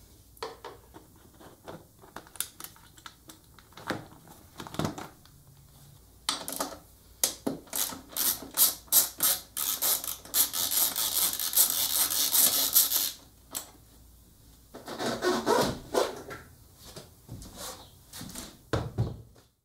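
A socket ratchet clicks in quick runs as the 12 mm bolts holding a Suzuki DR650's side cover plates and seat are undone, with knocks from handling the plastic cover. Near the end there is rubbing and scraping as the seat is pulled off.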